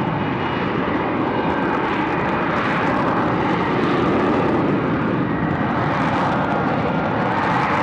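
Lockheed Martin F-35B Lightning II in STOVL mode, its jet engine and shaft-driven lift fan running in a loud, steady roar with a faint high whine.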